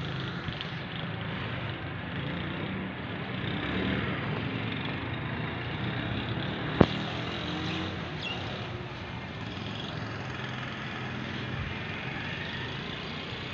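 Steady outdoor background noise with a low rumble under a wide hiss, and one sharp click about seven seconds in.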